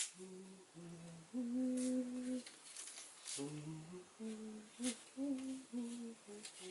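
A man's voice humming a tune to himself: a string of held notes that step up and down in pitch.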